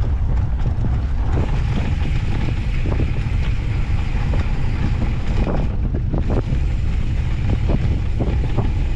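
Wind buffeting the microphone during an off-road handcycle ride on a dirt trail, a steady low rumble. Tyre noise runs under it, with scattered clicks and rattles, more of them in the second half.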